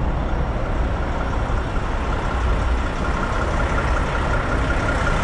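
Mack dump truck's diesel engine running as the truck drives slowly toward the camera, a steady heavy rumble. A thin high whine grows stronger during the last two seconds as the truck draws near.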